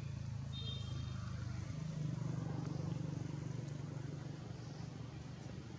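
Low, steady motor drone from a distant engine, swelling a couple of seconds in and easing off again, with a brief high whistle about half a second in.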